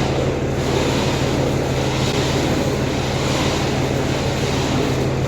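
Truck engine idling steadily, a constant low hum with no change in speed.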